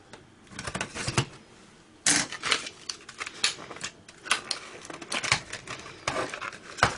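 Glued seams of the thin plastic casing of an HP CM03XL laptop battery pack cracking as it is pried apart by hand, with irregular clicks and scrapes that come thicker after about two seconds.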